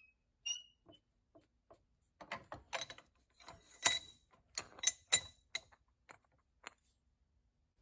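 Light metal clicks and clinks from a socket and a starter motor's end cap being handled against a vise, lined up to press in a new bushing. The taps come in a quick cluster in the middle and several ring briefly.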